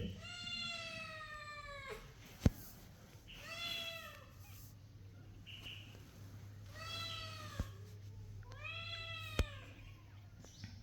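Newborn kittens mewing: four high, drawn-out cries a couple of seconds apart, with a few sharp clicks in between.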